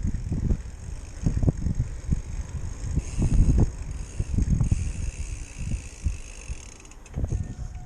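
RST Killah bicycle suspension fork being worked, giving a series of irregular low thuds and knocks as it compresses and rebounds.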